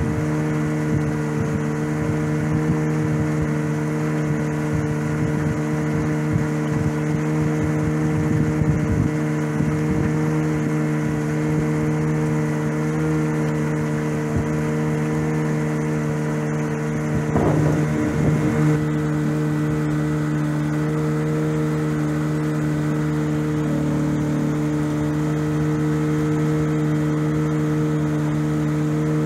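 Small boat's outboard motor running at a steady cruising speed, a constant drone with one brief wavering about two-thirds of the way through.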